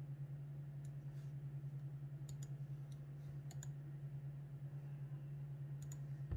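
A steady low hum, with a scattered handful of light clicks, some in quick pairs.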